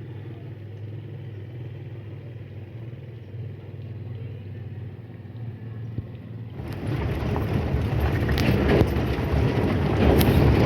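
Vehicle noise: a steady low hum, then from about six and a half seconds in an abrupt switch to a much louder rough rushing noise that keeps growing.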